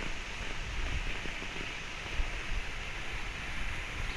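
Steady hiss of a burning smoke bomb giving off smoke, with wind rumbling on the microphone.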